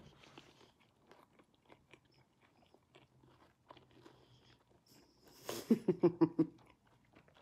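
A person chewing food close to the microphone, with faint, irregular crunching clicks. About five and a half seconds in comes a short, louder vocal burst of about six quick pulses.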